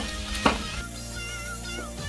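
Background music with meowing, and a sharp click about half a second in.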